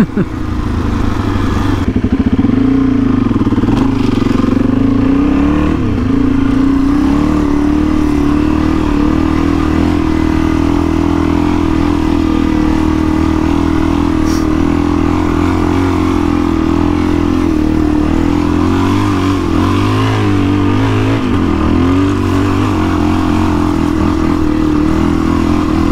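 Suzuki DR-Z400E's single-cylinder four-stroke engine running under load as the dirt bike is ridden through soft sand. The engine note rises and falls with the throttle a few seconds in and again about twenty seconds in.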